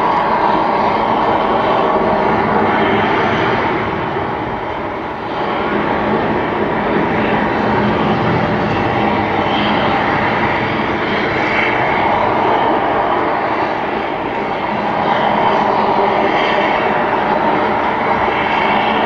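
Continuous loud roaring rumble of the Prometheus Volcano eruption effect, swelling and easing every few seconds.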